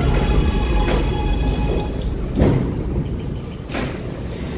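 Kawasaki R211A subway train braking to a stop: the rumble of the wheels on the rail fades while the electric propulsion whine, several tones together, drops away. A few clunks sound from the cars as it slows.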